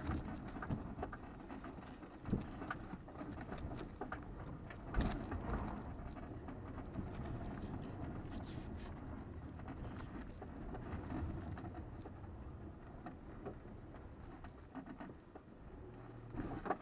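Cabin noise of a 2020 Toyota RAV4 XLE driving slowly over a rough dirt trail: a steady rumble from the car and its tyres on rock and gravel, with occasional knocks and rattles. The sharpest knocks come about two and five seconds in.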